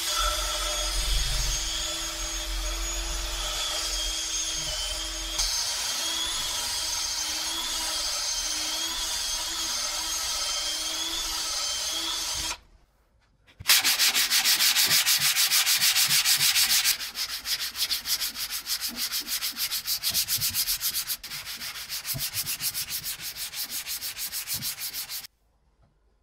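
A cordless drill spinning a sanding drum inside the hole of a steel plate, running steadily for about twelve seconds. After a short pause, a sanding block is rubbed back and forth over the flat steel plate in quick rhythmic strokes, stopping shortly before the end.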